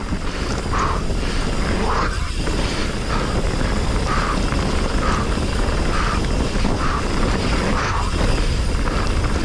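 A Commencal Meta HT hardtail mountain bike rolling fast down a rough dirt trail: steady tyre and drivetrain rattle with wind rumbling on the microphone.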